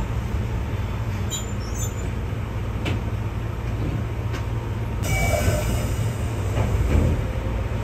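Keihan 600 series light-rail car running on the rails, heard from inside the front of the car: a steady low rumble, with brief high wheel squeal about a second and a half in and again from about five seconds.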